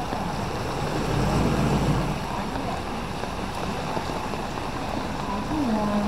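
Traffic on a wet road: a steady hiss of tyres on wet asphalt, with a vehicle engine passing and loudest about one to two seconds in.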